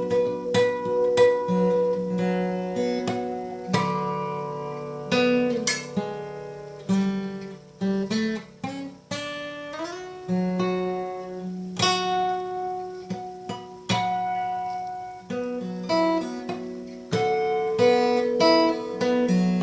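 Acoustic guitar strung with D'Addario coated phosphor bronze baritone strings, tuned down to B, being played: picked notes and chords left to ring, with a note sliding up about ten seconds in.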